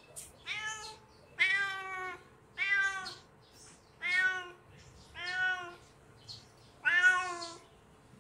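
White kitten meowing over and over, six short calls about a second apart, each slightly arching in pitch: a hungry kitten calling.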